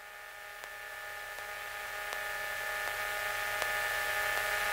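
Hiss and steady electronic hum in the aircraft's radio and intercom audio between transmissions, slowly growing louder, with faint ticks about every 0.7 s.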